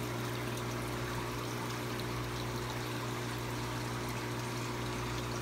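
Water pouring and trickling steadily through aquarium tank plumbing, over a constant low hum.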